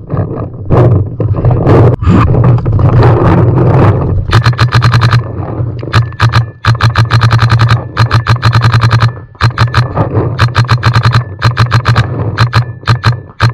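Paintball marker firing rapid strings of shots, about ten a second, in several bursts with short pauses between them, starting about four seconds in. A constant low rumble runs underneath.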